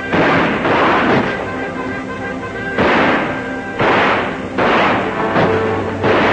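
Gunshots: about six sharp shots spaced a second or so apart, each with a ringing tail, over background film music.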